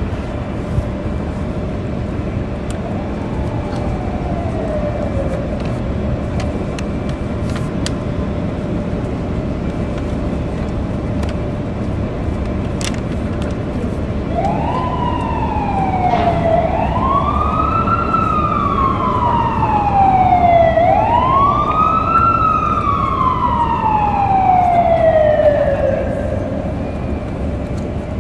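Steady city traffic rumble, with an emergency vehicle siren coming in about halfway through: it sweeps up quickly and falls slowly, three times, growing louder and then fading out near the end.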